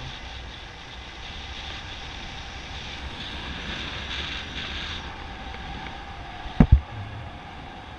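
Airflow rushing steadily over the action camera's microphone during a paraglider flight. Two quick thumps come close together near the end.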